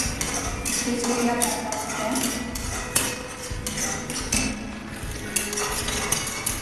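Spatula scraping and knocking against a steel pan as thick onion-tomato masala paste is stirred and fried, in quick repeated strokes.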